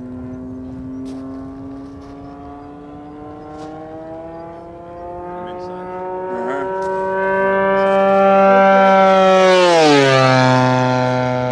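Radio-controlled T-6 Texan's G80 twin engine running at high power, slowly rising in pitch and growing louder as the plane dives in. About ten seconds in, the pitch drops sharply as it makes a low pass, then holds lower and fades.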